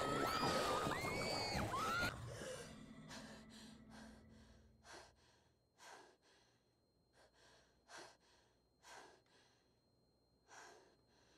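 Loud high-pitched screams cut off abruptly about two seconds in. A young woman's short, gasping breaths in and out follow, one after another, the panting of someone jolted awake by a nightmare.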